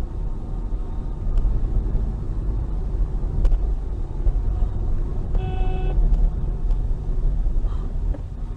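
Steady low road and engine rumble of a car driving at speed, heard through a dash cam's microphone inside the cabin, with a short horn-like tone lasting under a second about five and a half seconds in.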